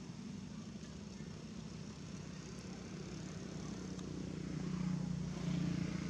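A motor vehicle's engine humming steadily in pitch, growing louder toward the end.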